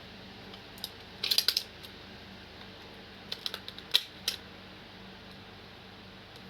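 Sharp clicks and clacks of hard plastic being handled, in two quick clusters about a second and three to four seconds in, over a faint steady hum.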